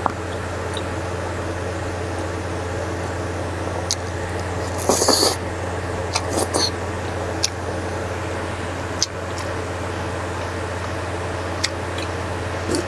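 Close-up eating sounds: a short slurp about five seconds in and another near six and a half seconds, with a few light clicks of a wooden spoon, over a steady low hum.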